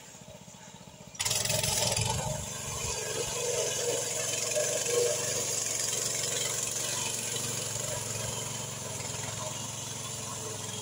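Walk-behind-tractor engine of a homemade trike, coming in suddenly about a second in and then running steadily.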